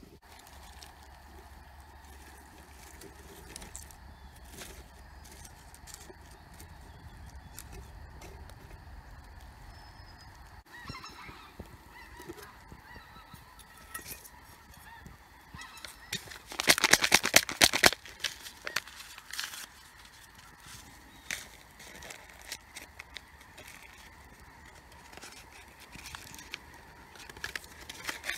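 Small twig fire crackling in a titanium firebox stove under a cooking pot. About two-thirds of the way through, a loud burst of goose-like honking lasts a second and a half.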